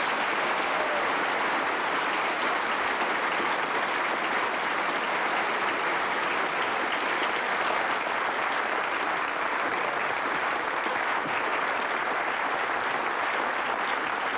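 Studio audience applauding, a dense, even clapping that holds steady.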